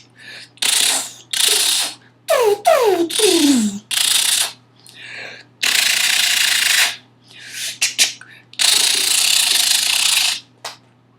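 A person imitating gunshots: a series of short, hissy bursts, with three quick falling-pitch laser-like "pew" sounds about two to four seconds in and two longer hissy blasts later on.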